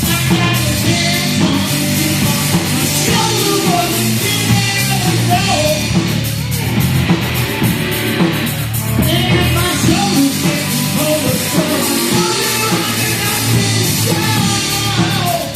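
Loud rock music with singing, played without a break.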